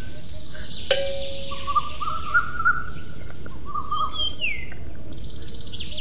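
Birds chirping and warbling over a steady background hiss, with a sharp click about a second in and a falling whistled call about four seconds in.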